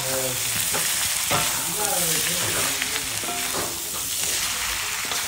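Noodles stir-frying in a black iron wok: a steady sizzle, with a metal spatula scraping and knocking against the pan as the noodles are tossed.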